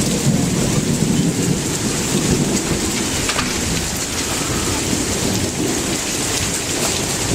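Heavy thunderstorm rain pouring steadily, with a low thunder rumble under it that is strongest in the first few seconds and then eases.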